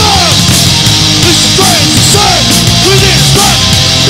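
Heavy punk/metal band playing live: distorted guitar and bass chords over drums with crashing cymbals, taken straight from the sound desk. Pitched notes bend and slide up and down over the chords.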